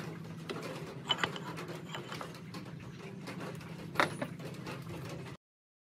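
Faint handling sounds of metal parts being lifted out of a Logan 200 lathe headstock: light rubbing and a few small clicks, the sharpest about four seconds in, over a steady low hum. The sound cuts off suddenly near the end.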